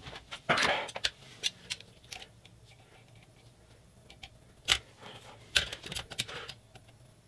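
Handling noise of a 3D printer being turned on a countertop, a short scrape about half a second in, followed by scattered light clicks and taps as digital calipers are slid open and set against the print head to measure the probe offset.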